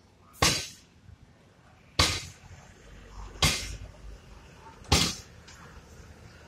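Four loud, sharp cracks at even intervals of about a second and a half, each dying away quickly. Under them is the low rumble of a heavy multi-axle goods truck driving past.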